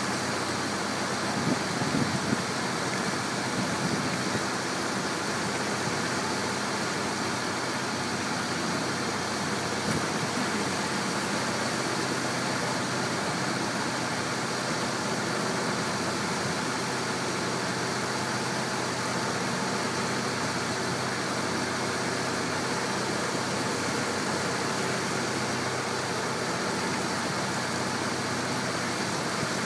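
Water taxi's engine running steadily under way, with the wake churning and rushing behind the stern.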